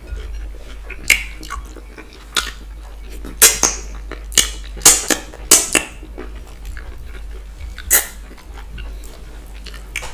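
Close-miked eating sounds: wet mouth smacks and slurps as fufu with slippery ogbono and okra soup is eaten by hand. About eight short, sharp smacks come at irregular intervals, most of them between about three and a half and six seconds in.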